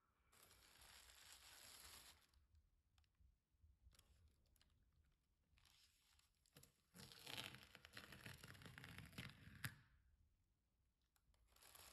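Faint rustling and crinkling of tape being handled, in two stretches of about two and three seconds, with a sharp click near the end of the second.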